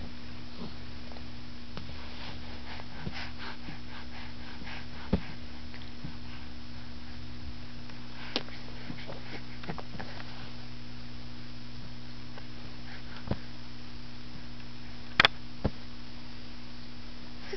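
Soft snuffling and mouth sounds from a baby close to the microphone, over a steady low hum, with a few sharp taps; the loudest tap comes about fifteen seconds in.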